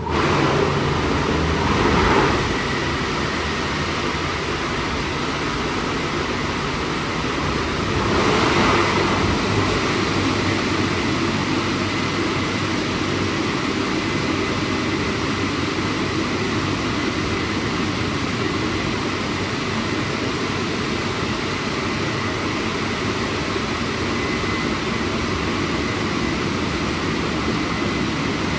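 Drying blowers of a WashTec SoftCare² Pro gantry car wash switching on abruptly and running steadily as a loud rush of air with a faint high whine. The noise swells briefly about two seconds and about eight seconds in.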